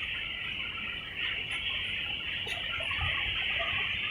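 Steady high-pitched insect chorus droning without a break, with faint scattered short calls like distant chickens clucking.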